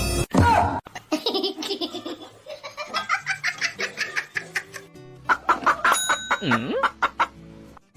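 Laughter, a long run of quick breathy bursts, after a stretch of music that cuts off about a quarter second in.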